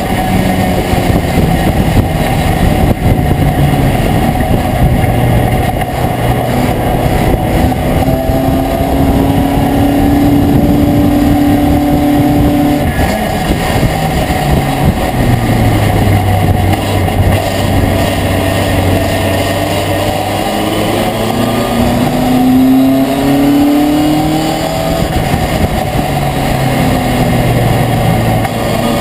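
Race pickup truck's engine heard from inside the cab, running hard under racing load over steady road and wind noise. Its pitch climbs through the revs and drops sharply about halfway through, then rises again later.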